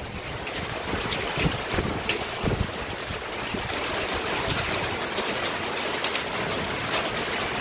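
Heavy rain with hail falling: a steady rush of rain with many sharp ticks of hailstones striking.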